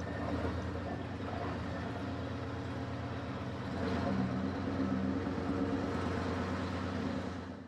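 Heavy vehicle engine running steadily, a little louder about halfway through, then fading out at the very end.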